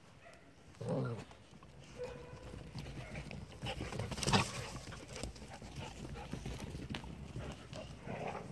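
Dogs and a puppy running about on bare dirt and dry grass: scattered scuffling footfalls and rustling, with a short low vocal sound about a second in and a brief louder scuffle just after four seconds, as a big dog brushes past close by.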